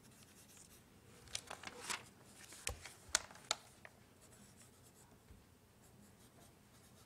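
Faint rustling of paper with a few light taps and clicks, bunched in the middle couple of seconds: sheets being handled at a lectern close to its microphone.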